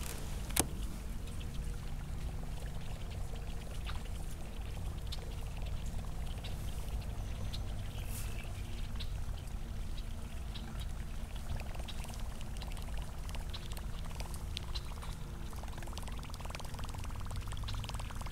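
Whopper Plopper topwater lure being reeled across the water, its spinning tail churning and plopping at the surface with a pouring, gurgling sound, over a steady low rumble.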